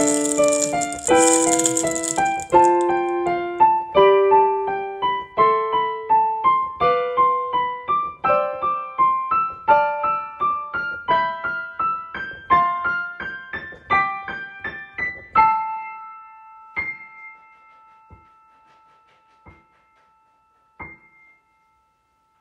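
Solo piano playing a melody of single notes over chords, recorded on a phone. About two-thirds of the way through the playing stops on a chord that rings on and fades, with a few faint clicks after it; a brief high hiss sounds near the start.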